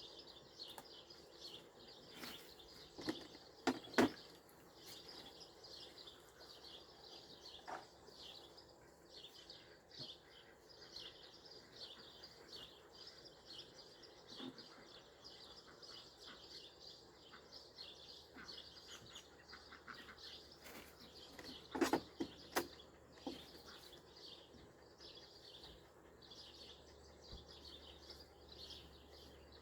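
Steady high-pitched chirping of birds outdoors, with a few sharp knocks: a pair about four seconds in and a cluster around twenty-two seconds.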